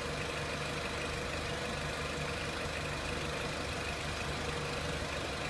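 2003 Renault Clio 1.6 petrol engine idling steadily.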